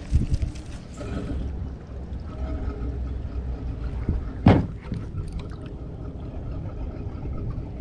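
Low rumbling handling noise on a body-worn camera with water sloshing against a small boat's hull. A few knocks at the start and one loud knock about halfway through.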